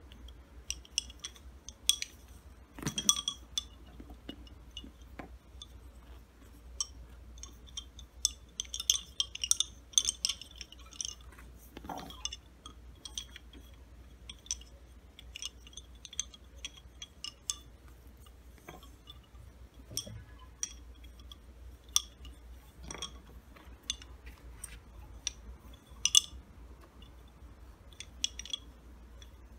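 Turned wooden lace bobbins clicking against one another in irregular quick clusters as pairs are crossed and twisted while working bobbin lace.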